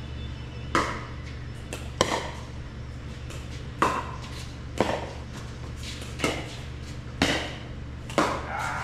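Pickleball rally: paddles striking the hollow plastic ball, seven sharp pops about a second apart, over a steady low hum.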